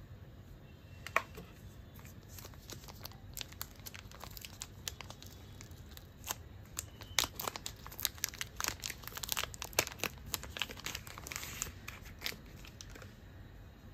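Thin plastic packaging crinkling and crackling as it is handled and peeled open by hand, pulling a small part out of its plastic sleeve. One sharp crackle about a second in, then irregular crinkles that grow denser in the second half before dying away near the end.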